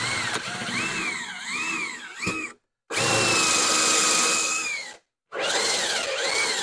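Cordless drill running a dull hole saw into a plastic golf-cart dash panel, in three trigger bursts with two short stops. The motor's whine rises and falls as the saw bites and frees up.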